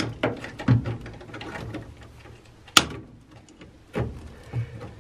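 Insulated side cutters snipping through old car wiring: several short, sharp snips, the crispest about halfway through, with wires and connectors rustling as they are handled in between.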